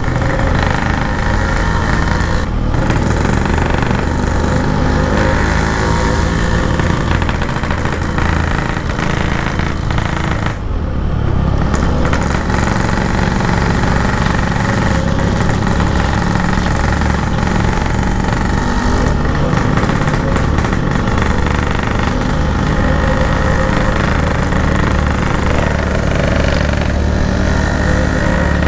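Motorcycle engine running steadily under way, with wind noise. About ten seconds in the engine briefly eases off, then pulls again.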